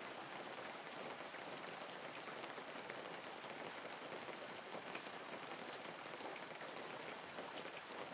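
Light rain falling steadily, an even hiss scattered with many small, sharp drop ticks.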